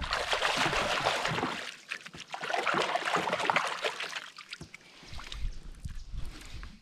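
Hands splashing and swishing in lake water beside a personal watercraft, rinsing off, for about four seconds. It then goes quieter, with a few drips as the water is shaken off the hands.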